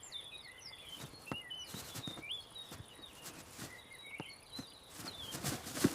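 Small birds chirping and twittering in quick short calls, with a few soft knocks and rustles, the loudest near the end.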